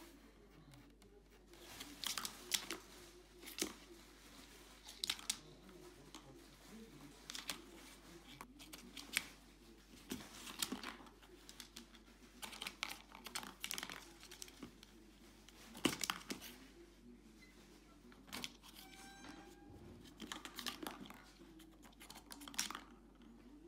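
Plastic circular cat track toy clicking and rattling as kittens paw at the ball inside it, with light rustling between the irregular clicks.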